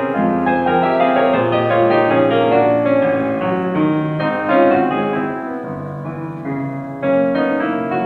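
Background piano music, several notes sounding together, with a new loud chord struck about seven seconds in.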